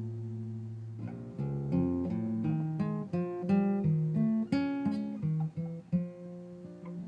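Music: a plucked string instrument, like an acoustic guitar, playing a melody note by note, each note ringing and fading.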